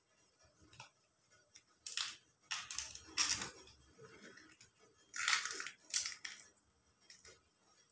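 Banana leaves crinkling and rustling as they are folded by hand into a packet, in several short bursts.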